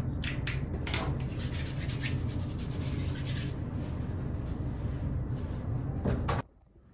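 Hands rubbing together and massaging the skin and scalp, a dense rubbing, scratching sound with a quick run of strokes in the middle. It cuts off suddenly near the end.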